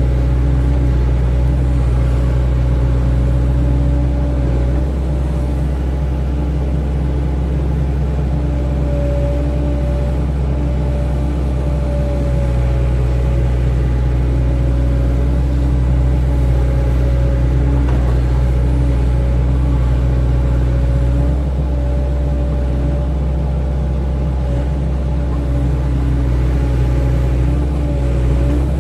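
Excavator's diesel engine running steadily under working load: a low rumble with a steady whine above it, easing slightly a few times as the load changes.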